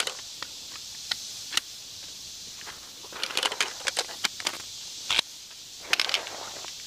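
Shock-corded aluminium leg poles of a lightweight camping cot being snapped together: scattered sharp clicks and rattles of the metal pole sections, with a quick cluster of clicks about three to four and a half seconds in.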